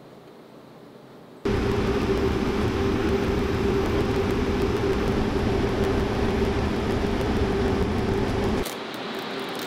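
Machinery running steadily: a loud mechanical hum with one held tone over a hiss, starting abruptly about a second and a half in and cutting down to a fainter hiss near the end.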